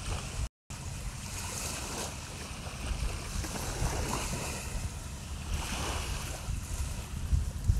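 Wind buffeting the phone's microphone as a low rumble, over a hiss of small waves washing on the beach. The sound cuts out completely for a moment about half a second in.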